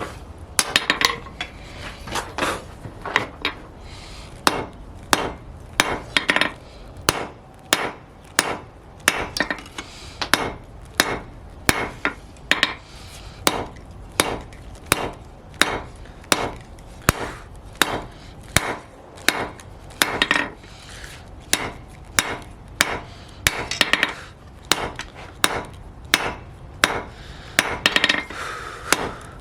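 Hand hammer striking a flat bar on an anvil in a steady run of forging blows, about two a second, each with a short metallic ring.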